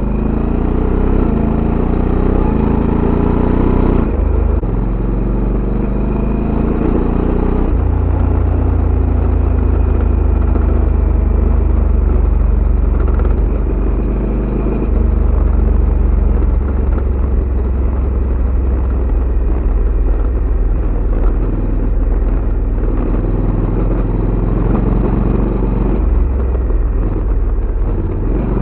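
Honda Africa Twin CRF1100 DCT's parallel-twin engine through its stock exhaust. It rises in pitch twice in the first eight seconds, dropping back each time, then runs steadily.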